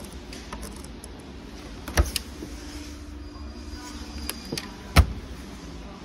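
Two sharp knocks about three seconds apart, the second the louder, with a faint steady hum between them over shop background noise.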